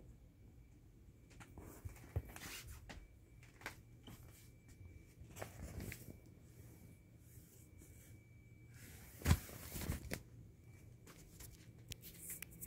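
Scattered rustling, crinkling and soft knocks from a handled vinyl inflatable balloon dog and the bedding under it, brushed against by hand and phone. The loudest knock and crackle come about nine seconds in, over a faint steady high whine.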